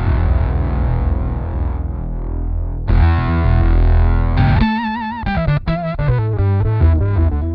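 Electric guitar played through a Stomp Audio Labs Octopus analog octave pedal, with a distorted tone and a heavy bass under the notes. A held note rings for about three seconds and a new one is struck. From about halfway in, a run of single notes with vibrato follows.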